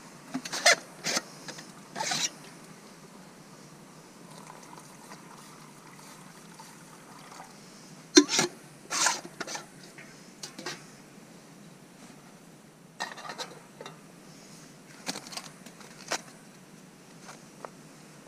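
Handling noises from camp gear: a small metal canister and its lid clinking, scraping and rustling in short separate bursts, the sharpest about 8 seconds in.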